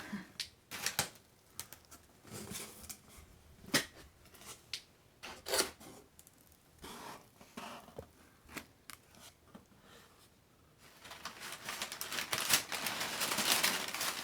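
Packing paper in a box of toys being handled: scattered rustles and clicks at first, then steady crinkling from about eleven seconds in as the paper is pulled about.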